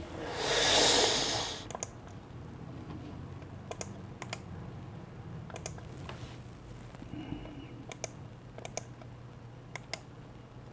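Sparse, irregular clicks of computer keys, about one a second, after a brief loud rush of noise about half a second in.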